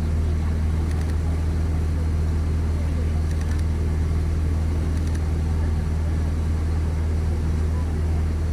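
A steady, unchanging low engine drone.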